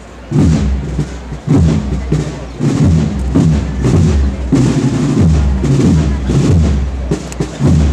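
Procession band drums, snare drums and a bass drum, beating a steady march rhythm behind a Holy Week float.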